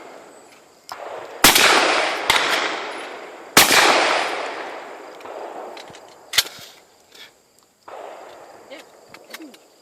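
Remington 11-87 semi-automatic shotgun firing two shots about two seconds apart, each echoing away over several seconds. A smaller sharp crack comes between them, and a single sharp click follows a few seconds later.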